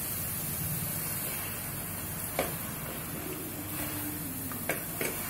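A wooden spatula stirring paneer and capsicum in masala gravy in a wok, over a steady hiss, with a few light knocks of the spatula against the pan about halfway through and twice near the end.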